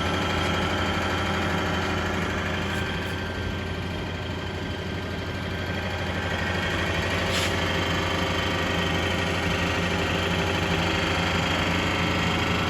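Mori Seiki DuraTurn 2550MC CNC lathe running with a steady machine hum made of several steady tones. There is one short click about seven seconds in.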